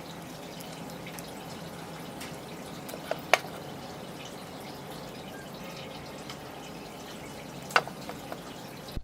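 Steady running or pouring water, with a few sharp clicks: two close together about a third of the way in, and two more near the end.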